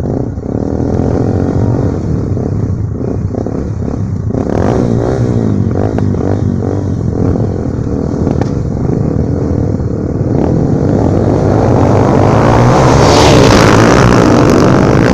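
Enduro motorcycles, Honda Tornado 250s and a Suzuki DR, revving and setting off, their engine pitch rising and falling repeatedly about four to seven seconds in, then growing louder toward a peak near the end.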